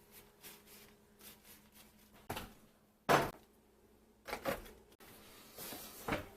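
A few separate knocks and clatters of kitchen items being handled and set down, the loudest about three seconds in.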